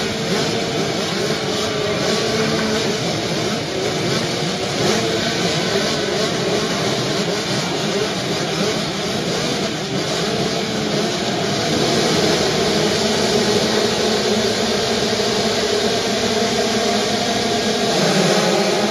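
A whole field of 85cc two-stroke motocross bikes revving together on the start line, many engines blaring at once. The pack grows louder about twelve seconds in and again near the end.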